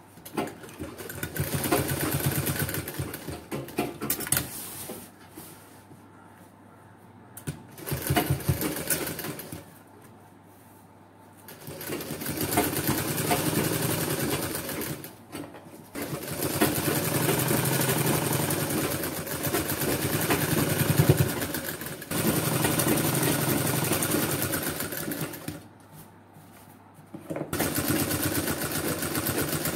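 Industrial sewing machine stitching in about half a dozen runs of a few seconds each, with short pauses between them as the fabric is repositioned.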